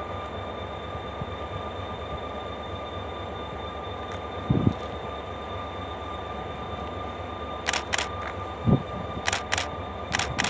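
Train approaching along the track with a steady low rumble and a steady whine. Two low thumps come near the middle, and a run of sharp clicks starts in the last few seconds.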